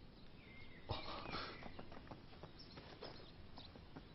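Cloth rustling and handling: a sudden short burst of rustling about a second in, then a few faint taps and clicks, over a quiet outdoor background.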